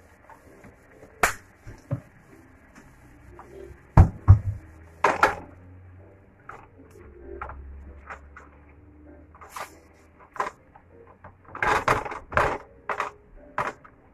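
A plastic spatula stirring diced chicken, onions and bell peppers in a nonstick frying pan: irregular knocks and scrapes against the pan. The loudest knocks come about four seconds in, and a quick run of them near the end.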